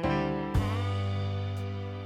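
Instrumental background music: a note starts and another comes in about half a second later, then both are held.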